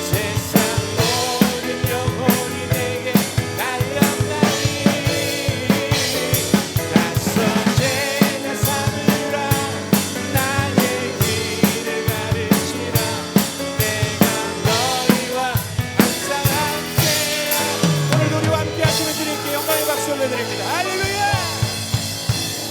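Live worship band music with an acoustic drum kit playing a steady groove of kick, snare and rimshots under sustained chords. The drumming stops about three-quarters of the way through, leaving the band's chords ringing with a low note sliding downward.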